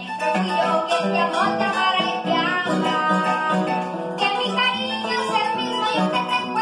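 Llanera harp playing a brisk plucked accompaniment with a steady pulse of bass notes, and a boy singing over it.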